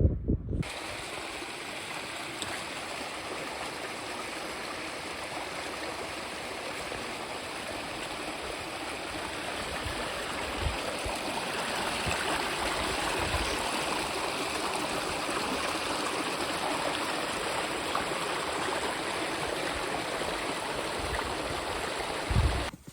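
A stream running: a steady rush of moving water that starts and stops abruptly, with a few faint low thumps.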